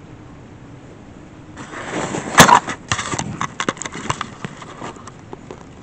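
Handling noise of the camera being grabbed and moved. A rustle builds, then a sharp loud knock comes about two and a half seconds in, followed by a quick run of clicks and bumps for a couple of seconds.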